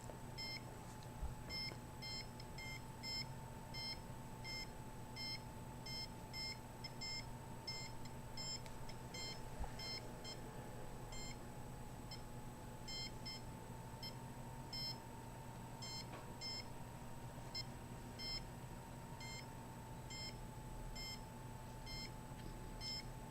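Handheld RF (microwave) meter giving short, high electronic beeps at an uneven pace as it picks up signal, over a faint steady tone.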